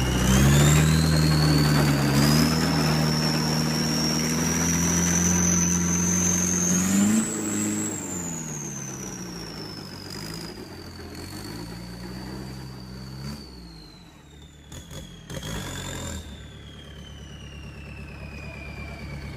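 Off-road 4x4's engine pulling under throttle, its revs climbing for about seven seconds with a high whine rising alongside. Then the revs drop away and the engine runs on more quietly.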